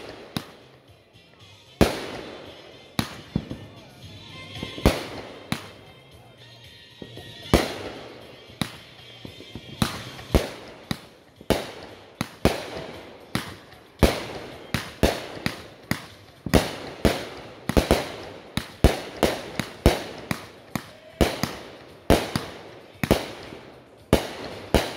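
Aerial fireworks bursting overhead: a string of sharp bangs and crackles, spaced a second or two apart at first and coming in a rapid, dense volley in the second half.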